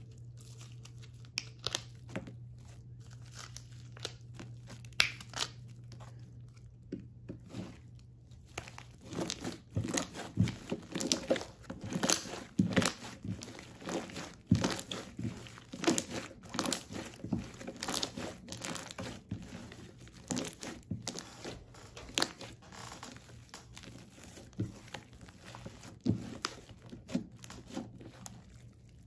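Hands squeezing and kneading a sticky chocolate-brown slime, giving a run of crackling clicks and pops. The clicks are sparse at first and thicken to a busy crackle from about a third of the way in, easing again near the end.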